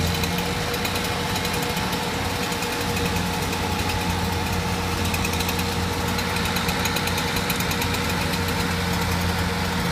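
An engine idling steadily, with a fine, even ticking high in the sound.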